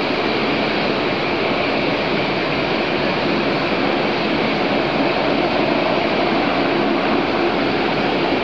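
Boeing 737 jet engines running at low taxi power: a steady rumble and hiss with a faint whine, holding the same level throughout.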